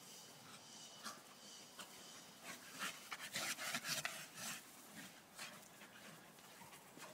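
Two Staffordshire bull terriers panting with quick, irregular breaths as they play-wrestle. The panting is loudest around the middle, when the dogs come close.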